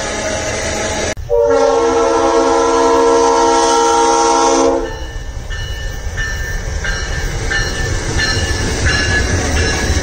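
Freight wagons rolling along the track. About a second in, a diesel locomotive's air horn sounds one long blast of about three and a half seconds. The locomotive and loaded iron-ore wagons then roll past with an even clickety-clack of wheels over the rail joints.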